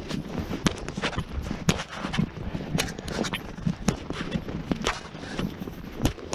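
Footsteps walking through snow, about two steps a second.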